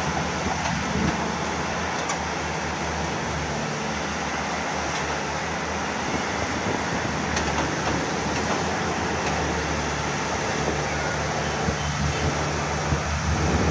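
Excavator's diesel engine running steadily at working throttle.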